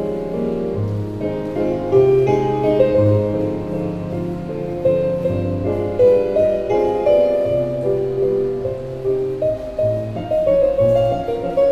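Piano music playing a flowing melody over changing bass notes, a ballet accompaniment.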